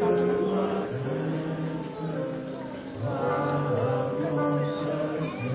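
Slow music of long held chords that change pitch a few times.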